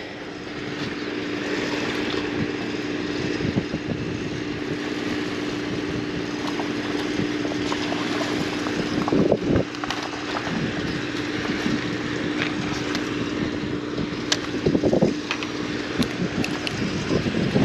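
Wind rushing over the microphone above a steady engine hum, with a few short knocks.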